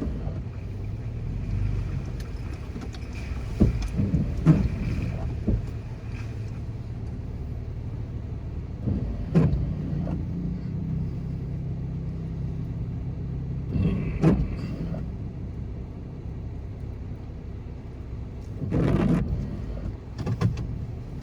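Toyota FJ Cruiser's 4.0-litre V6 engine running at low speed on a rough, muddy trail, a steady low hum broken by occasional knocks and clatters, the longest near the end.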